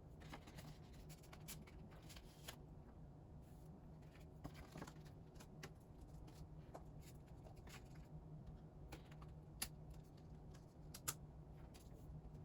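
Quiet handling of K-pop album packaging and photocards: light rustles and small clicks, with two sharper ticks near the end, over a low steady hum.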